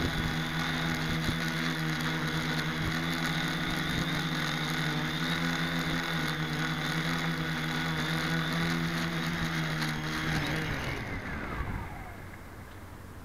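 Deadcat multirotor's brushless motors and propellers humming steadily in low hover, heard from the onboard camera. About ten and a half seconds in, the motors spin down with a falling pitch as it sets down on the grass, leaving a faint hiss.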